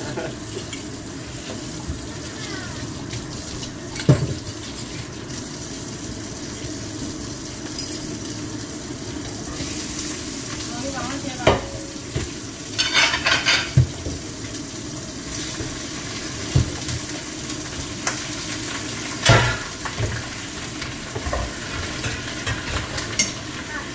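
Kitchen cooking sounds: a steady hiss under scattered clinks and knocks of bowls, pots and utensils, a few of them sharper and louder. Near the end water runs from the sink tap into a pot.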